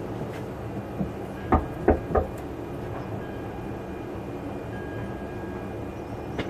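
Three sharp knocks in quick succession about a second and a half in, over a steady low background hum.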